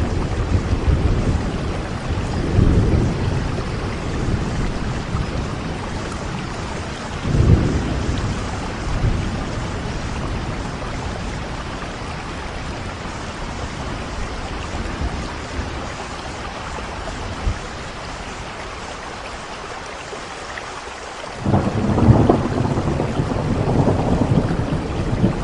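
Steady rain with rolling thunder. Low rumbles come in the first three seconds and again about seven seconds in; after a quieter stretch, a louder rumble sets in about twenty-one seconds in.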